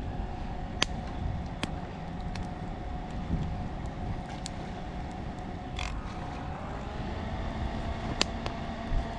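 A steady distant motor hum over a low rumble, its pitch shifting slightly about two-thirds of the way through, with a few sharp cracks and a short rustle scattered through it.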